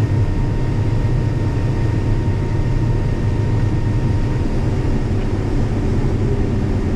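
Corn combine harvester running steadily while cutting, a low even drone of engine and threshing with a faint steady whine above it.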